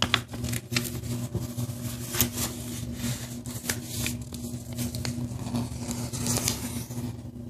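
A sheet of paper being folded by hand: rustling and crackling as the corner flaps are folded in and the creases pressed flat, with sharper crinkles near the start and about two seconds in. A steady low hum runs underneath.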